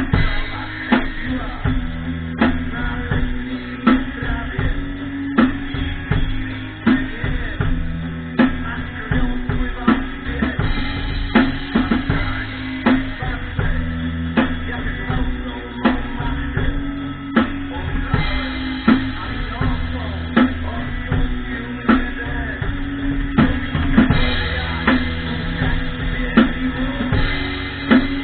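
Rock music led by a drum kit keeping a steady beat, with strong hits about every second and a half, over guitar and bass.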